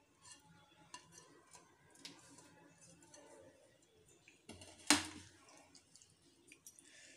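Quiet clinks and scrapes of a plate against a non-stick pan as flaked cooked fish is tipped in and handled, with one sharp knock about five seconds in.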